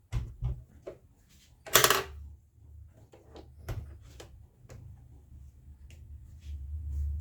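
Light clicks and knocks of plastic parts being handled and pressed together on a plastic sewing machine housing, with one louder knock about two seconds in, as a small white plastic cap is fitted over a screw.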